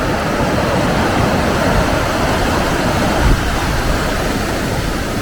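Pabineau Falls, a waterfall, rushing steadily and loudly.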